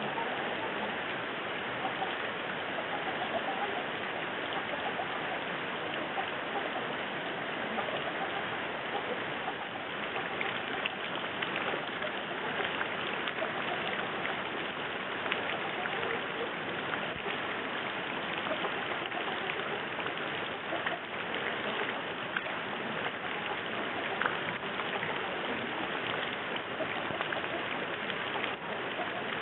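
Steady rain falling on a tiled roof and into puddles on a dirt yard: a dense, even hiss made of many small drop impacts.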